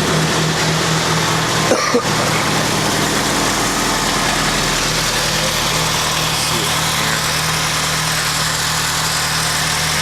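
Car engine idling steadily, with one brief knock about two seconds in.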